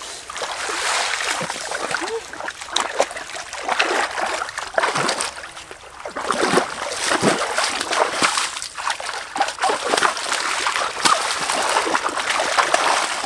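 Water splashing and sloshing as hands grope through a shallow rocky stream, in irregular splashes over the trickle of running water. It dips briefly about midway.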